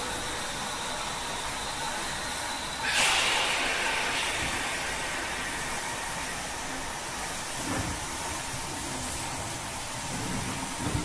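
Onboard sound system of a Broadway Limited NYC J-1e Hudson model steam locomotive playing steam effects through its small speaker: a steady hiss, with a sudden louder burst of steam hiss about three seconds in that fades over a couple of seconds.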